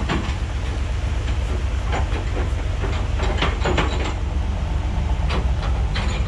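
Rollback tow truck's engine idling steadily, with scattered light knocks and taps over it.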